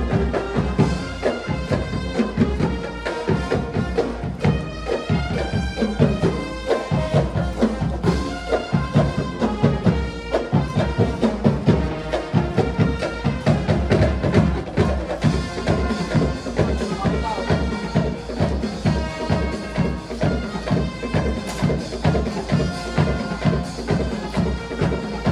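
Marching band playing a tune live, wind instruments carrying the melody over a steady drum beat.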